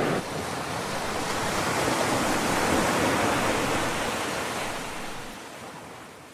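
Rushing ocean surf, one long swell of wave noise that builds and then fades away.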